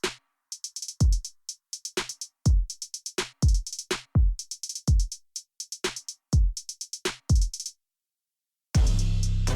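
Background music: a drum-machine beat of deep kicks that fall in pitch and fast hi-hat ticks. It drops out to silence for about a second near the end, then comes back fuller, with a steady bass line.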